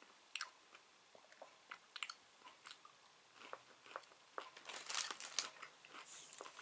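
Close-up chewing of a chicken nugget: soft wet mouth clicks and crunches, with a sharper click about two seconds in and a cluster of crunches around five seconds in.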